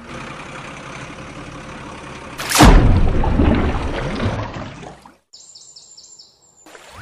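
A loud water splash about two and a half seconds in as a toy truck plunges into a muddy pool, fading into sloshing over about two seconds, after a steady noisy hiss. A few quick high bird-like chirps follow near the end.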